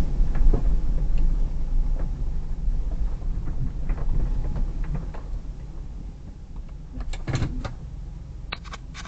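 Low rumble of a Hyundai Terracan's 3.5 V6 and its tyres on a snowy track, heard inside the cabin, growing steadily quieter. Scattered small clicks and creaks run through it, with a short burst of knocks about seven seconds in.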